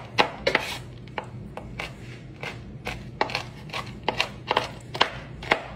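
Knife chopping roasted shelled pistachios on a wooden cutting board: a string of irregular, sharp knocks of the blade on the board, about two to three a second.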